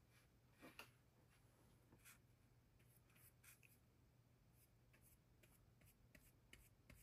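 Near silence, with faint, short scratchy strokes of a paintbrush dabbing and dragging oil paint on a painting panel.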